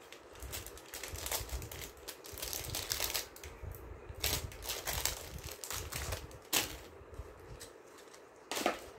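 Handling noise of jewellery and its packaging on a table: rustling and crinkling with scattered light clicks and knocks, a few sharper clicks in the second half.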